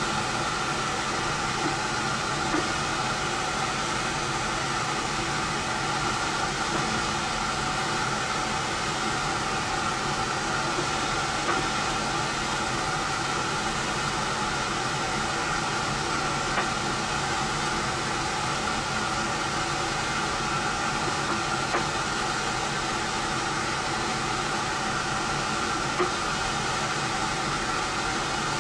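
A machine motor running steadily, a constant whine over hiss, with a few faint clicks.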